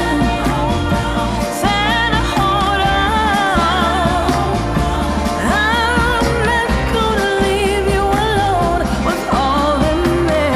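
Pop song with a singer's voice over a steady bass beat, played as background music.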